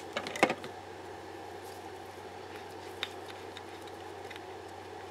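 Light clicks and knocks from plastic glitter shaker jars being handled and set down on a plastic tray: a short cluster in the first half second, the loudest about half a second in, and one more click about three seconds in. A faint steady hum runs underneath.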